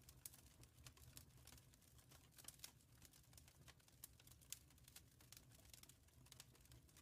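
Wood fire crackling, with irregular sharp pops and snaps several times a second over a soft low rumble of the burning.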